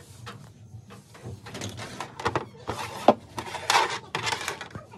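Hard objects being handled: irregular knocks, scraping and clattering, with one sharp knock about three seconds in.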